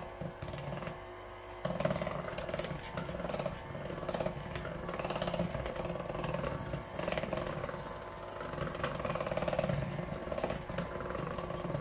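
Electric mixer running, its beaters whirring through thick cream-cheese filling in a stainless steel bowl, with a steady wavering motor hum and light ticking of the beaters. It gets louder about two seconds in and keeps going.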